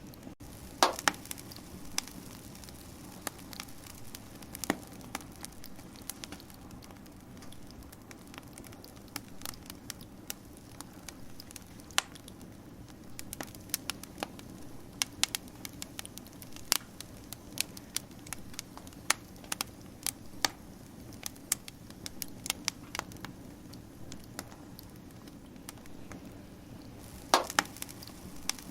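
Wood fire crackling: irregular sharp pops and snaps over a steady low rush of flame, with a quick cluster of louder pops about a second in and again near the end.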